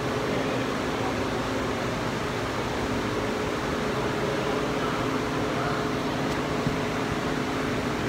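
Steady hum and hiss of running ventilation, even throughout, with a faint low drone under it.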